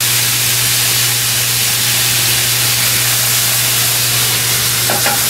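White wine hissing loudly and steadily as it boils off in a very hot skillet of blackened fish fillets. A low steady hum runs underneath.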